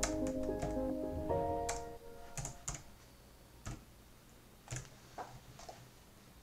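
Background music with a melody of steady notes that stops about two seconds in, followed by about six scattered sharp clicks.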